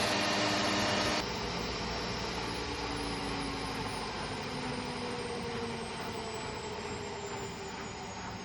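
Washing machine at the end of a spin. About a second in the motor noise drops off suddenly, and the drum coasts down, its whine falling slowly in pitch as it slows.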